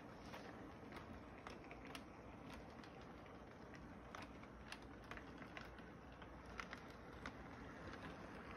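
Model electric train rolling along its track: a faint steady hum with scattered light clicks from the wheels and cars.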